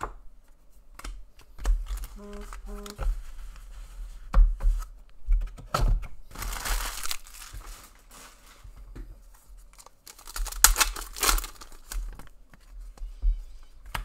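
Trading card packs being torn open, with wrappers crinkling and cards clicking as they are handled. Two short tones sound about two seconds in.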